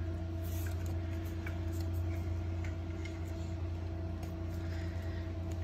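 A steady low electrical hum, with a few faint soft clicks of Pokémon trading cards being slid and shuffled in the hands.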